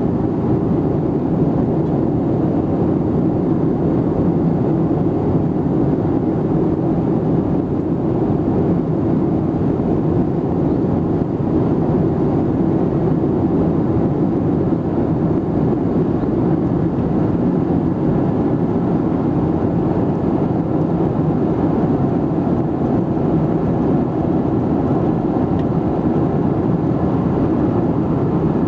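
Steady cabin noise of a Boeing 737-700 in flight: the even hum and rush of its CFM56-7B turbofan engines and the airflow, heard from inside the cabin.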